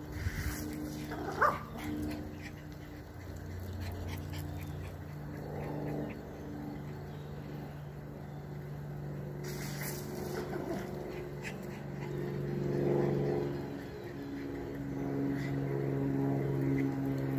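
Small dog whining in drawn-out, wavering whimpers, with a short rising yelp about a second and a half in.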